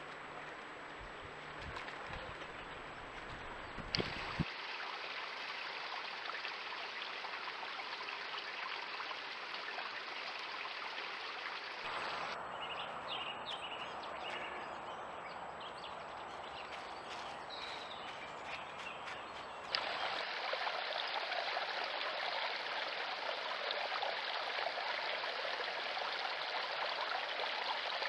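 Steady rushing of a stream's running water on a trail camera's microphone, changing abruptly at cuts between clips about 4, 12 and 20 seconds in, with sharp clicks at the cuts. In the middle stretch the water is quieter and there is light rustling in leaf litter from a wild boar rooting about.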